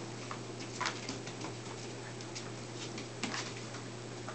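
A litter of puppies eating dry kibble from a bowl and shuffling on a plastic tarp: scattered small crunches, clicks and crinkles, with a steady low hum underneath.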